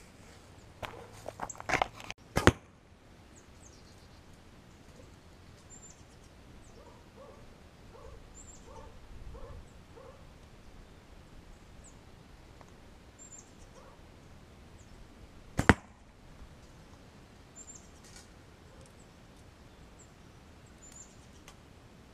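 Arrows shot from a 45-pound recurve bow hitting a cardboard box packed tight with plastic bags at close range: a few clicks then a sharp hit about two seconds in, and a second sharp hit about two-thirds of the way through.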